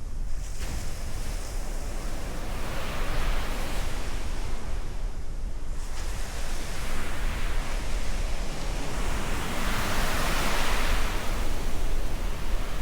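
Rough, stormy sea: waves breaking and washing in continuously, with louder surges about three seconds in and again about ten seconds in, and wind rumbling on the microphone.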